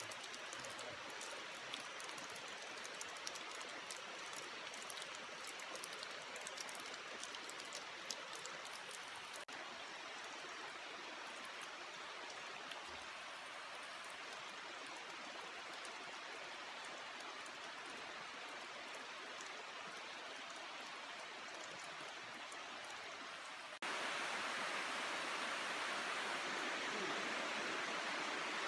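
Heavy rain falling steadily, with fine drop ticks on a surface for the first several seconds. It gets suddenly louder near the end.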